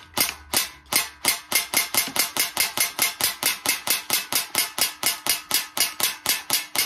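Airsoft GI Infidel airsoft rifle firing shot after shot, each a sharp crack, at about two or three shots a second at first and about five a second from about a second in.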